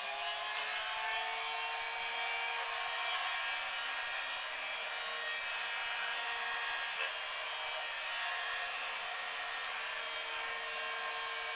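Small battery-powered electric motor spinning the fan of a homemade blower built from a vacuum cleaner, running at a steady whine with the hiss of moving air.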